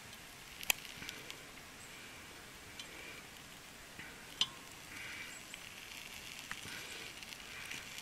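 Lamb roast and potatoes sizzling faintly in an open camp oven over hot coals, with two sharp light clinks of a knife against the oven, one about a second in and one near the middle.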